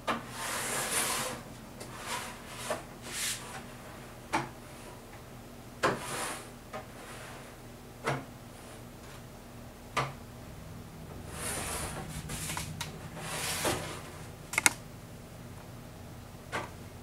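Wide metal spreading knife scraping wet acrylic gesso across gatorboard in a series of short strokes, with a few sharp clicks between them. The longest run of strokes comes a little past the middle.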